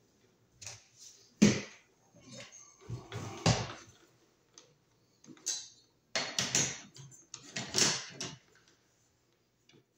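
A Wiremold surface-mount box being handled and fitted onto the wall over the wires: irregular knocks, clunks and rustling. The sharpest knock comes about one and a half seconds in, with more clusters around three and a half, six and a half and eight seconds.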